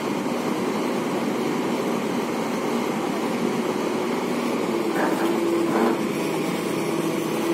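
Excavator's diesel engine running steadily.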